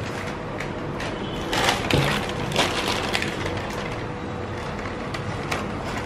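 Bakery work noise: scattered clicks and knocks over a steady hum, with a sharper knock about two seconds in.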